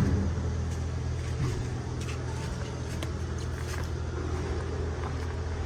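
Wheel excavator's Cummins diesel engine idling steadily, a low even hum, with a few faint ticks.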